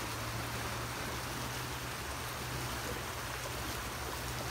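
Rain-swollen, muddy creek rushing steadily in flood.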